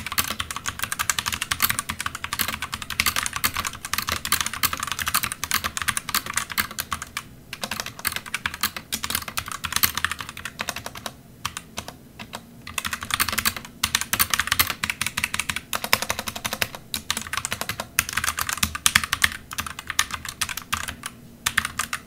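Fast typing on a Womier WK61 60% mechanical keyboard with its stock linear red switches in a plastic case: a dense run of light, hollow-sounding key clacks that pauses briefly a few times.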